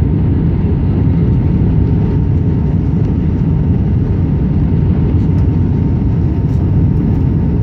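Steady low rumble inside the cabin of an Airbus A319-132 on descent, heard from a window seat beside the wing: the drone of its IAE V2500 engines and the rush of air past the fuselage, with a faint thin whine held under it.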